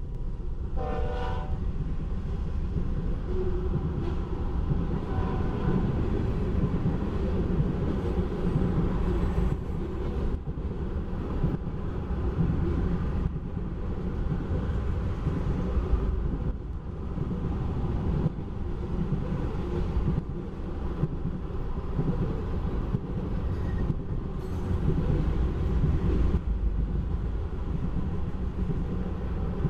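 Loaded oil tank cars of a long freight train rolling past: a steady, heavy rumble of steel wheels on the rails. A short locomotive horn blast sounds about a second in.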